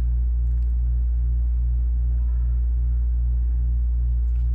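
Steady low electrical hum with a faint pulsing about three times a second.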